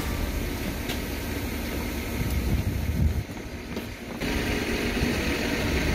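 Truck engine running with a steady low rumble. The sound changes abruptly about three seconds in and again about four seconds in.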